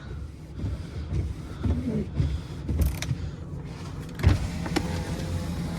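Vehicle engine running with a steady low rumble, with a couple of sharp clicks a little past the middle.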